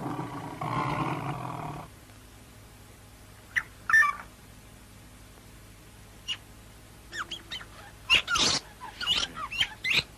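A big cat growls low and rough for about the first two seconds. After a pause, a bird of prey screeches in a series of sharp, sweeping cries, scattered at first and coming thick and loud near the end.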